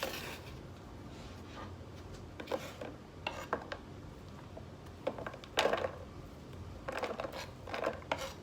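Kitchen knife knocking and scraping on a wooden cutting board while cutting green onions: irregular knocks with short scrapes between them, the loudest a little past halfway.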